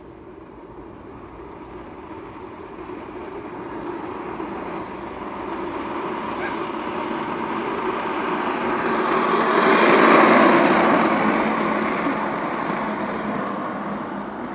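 Small wheels of a ride-on toy scooter rolling fast on asphalt, the rolling noise growing as it approaches, loudest about ten seconds in as it passes close, then fading as it moves away.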